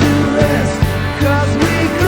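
Background music: a rock ballad with a steady beat, bass and melodic instrument lines, in a passage without singing.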